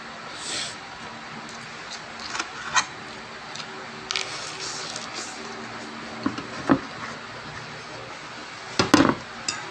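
Eating with metal forks: chewing and scattered clicks and clinks of a fork against a plate, with the loudest clatter near the end, over a steady low hum.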